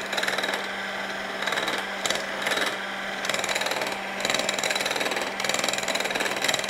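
Red electric hand mixer running at speed, its beaters whipping egg whites and sugar into meringue in a bowl: a steady motor hum under a rough whirr that swells and dips as the beaters move through the mixture.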